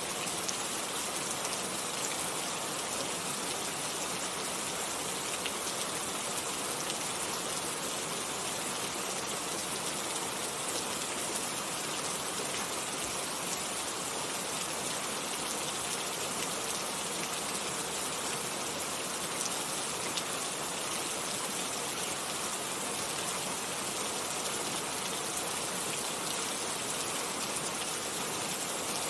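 Steady rain falling and pattering on surfaces, an even hiss with faint scattered drop ticks.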